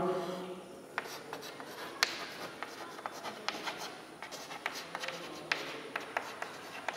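Chalk writing on a chalkboard: an irregular run of short taps and scratches as letters are stroked onto the board.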